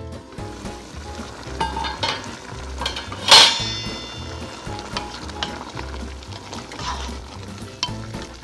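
Chicken pieces cooking in a pot of tomato broth, bubbling and sizzling, with a wooden spoon stirring and scraping near the end. A single sharp metallic clank with brief ringing a little over three seconds in.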